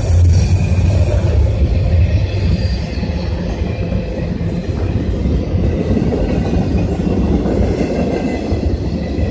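Train cars rolling past with a steady low rumble of wheels on rail, and a faint high wheel squeal at the start and again near the end.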